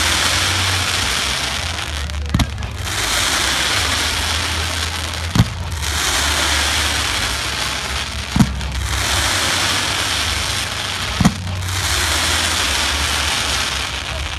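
Professional fireworks display: four sharp bangs about three seconds apart, each followed by a couple of seconds of crackling.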